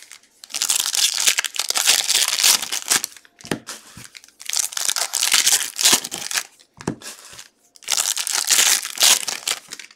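Foil trading-card pack wrappers crinkling as they are torn open and handled, in three long stretches of about two seconds each, with a few short knocks between them.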